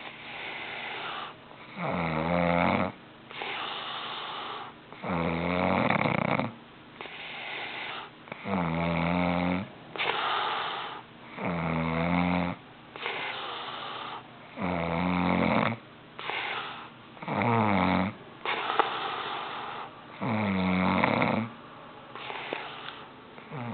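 A man snoring steadily in sleep: a loud, pitched, rasping snore about every three seconds, each followed by a softer, airy breath.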